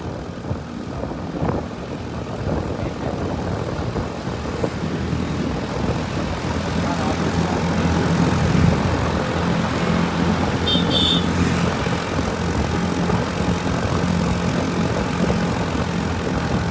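A motor vehicle's engine running steadily amid road traffic noise, growing louder and stronger in tone about halfway through. A short high-pitched tone sounds about eleven seconds in.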